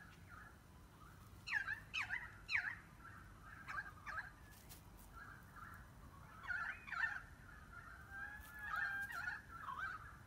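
A series of short animal calls that sweep quickly down and up in pitch, a cluster about a second and a half in and more from about six seconds on, with a longer wavering call near the end, over a faint steady background hiss.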